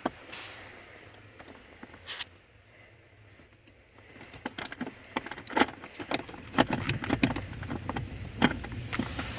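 Small metal clicks and taps of a mini wrench working the screws of a blower motor resistor, sparse at first, with a pause, then coming quickly in the second half. A steady low hum starts about two-thirds of the way through.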